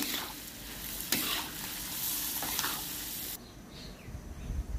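Lamb and vegetables sizzling in a wok as a metal utensil stirs them, with a few sharp clicks of metal against the pan. The sizzle cuts off suddenly about three and a half seconds in.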